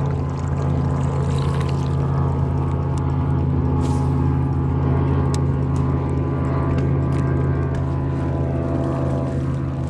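Boat motor running steadily with a constant low hum.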